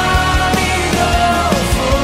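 Background music track with a steady beat and a sung or held melody.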